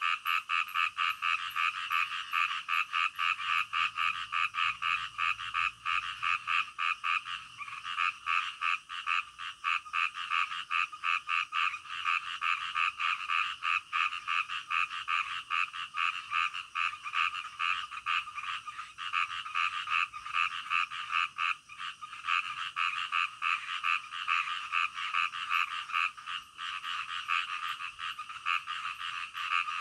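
A chorus of many frogs croaking without pause, a dense, rapid pulsing that goes on steadily.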